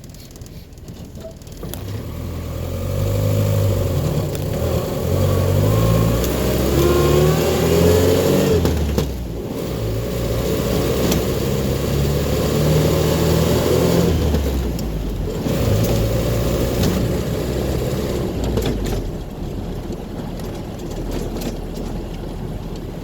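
2.25-litre petrol four-cylinder engine of a 1961 Land Rover Series II pulling away and accelerating through the gears. The engine note climbs in each gear and drops at the shifts, about nine and fifteen seconds in. A thin whine rises with the speed in the first stretch.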